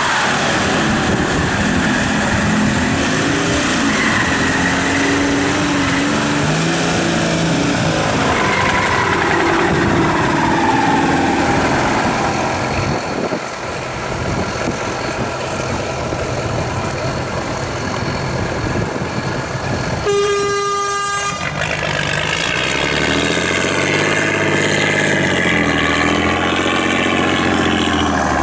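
Off-road vehicle engines revving hard while churning through deep mud, the pitch rising and falling. A single horn blast of about a second sounds about two-thirds of the way through. After it, the stuck truck's engine revs up and down in repeated surges as it fights through the mud.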